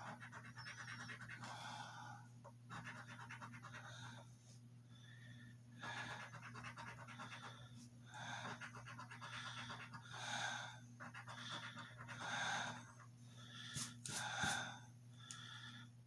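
A coin scratching the coating off a scratch-off lottery ticket: faint, repeated short scraping strokes, roughly one a second, with a couple of sharper scrapes near the end.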